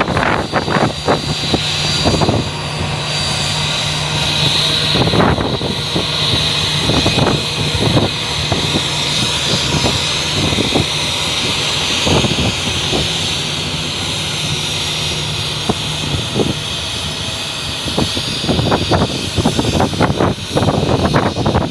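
Jet airliner engines running steadily, a continuous rush with a high steady whine over it.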